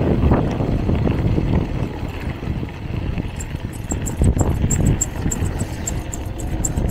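A bike rolling over a rough off-road track, making a continuous rumbling and rattling noise with uneven knocks. About halfway through, a light, fast ticking joins in at about four ticks a second.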